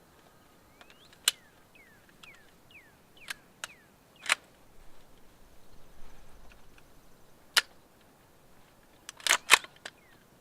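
Suppressed 9mm pistol shots from a CZ Scorpion Evo with a Dead Air Ghost 45M silencer firing Federal HST 124-grain +P rounds: sharp cracks at irregular intervals, the loudest two close together near the end. The +P loads sound much louder than the subsonic ammunition.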